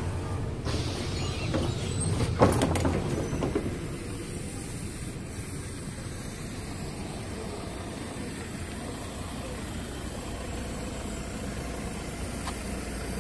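Inside a MAZ-103 city bus: a hiss of compressed air from the bus's air system about a second in, a sharp clunk a moment later, then the steady low rumble of the bus.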